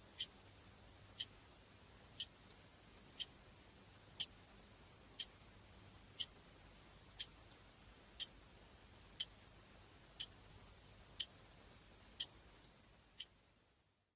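Clock ticking: sharp, high ticks, evenly spaced at one a second.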